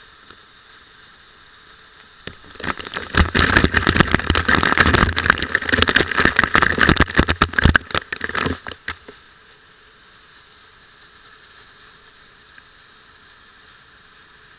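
Waterfall water pouring directly onto a head-mounted SJ4000 action camera: a loud, dense spattering of drops on the camera housing. It starts about two seconds in and stops at about nine seconds, leaving only a faint steady rush of falling water.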